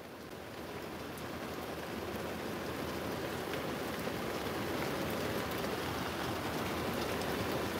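Car's air blower fan running, a steady rush that swells over the first couple of seconds and then holds, blowing on a wet dog to dry him.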